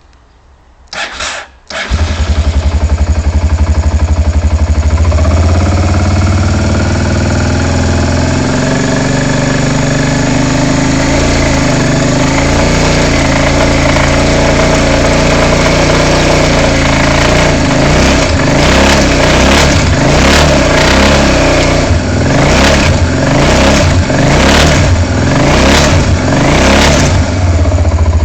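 Honda Transalp motorcycle engine cranked briefly on the starter, catching about two seconds in and settling into a steady idle. In the last ten seconds the throttle is blipped repeatedly in short revs.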